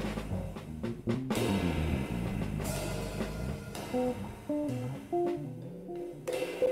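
Electric bass playing a moving jazz line over a drum kit, with no saxophone, cymbal and drum accents striking about a second in and near the end.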